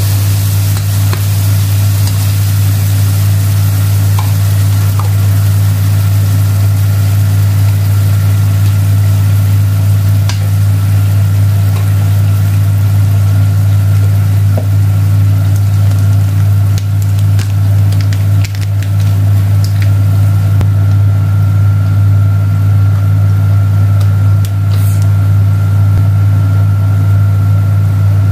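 A steady, loud low hum of a running motor, with a hiss over it and a thin steady higher tone that grows stronger about two-thirds of the way through. A few light clicks are scattered through it.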